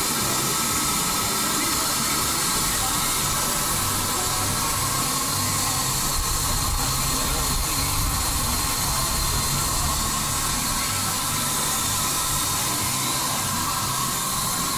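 A 1934 Wallis & Steevens Advance steam roller with steam hissing steadily from the engine.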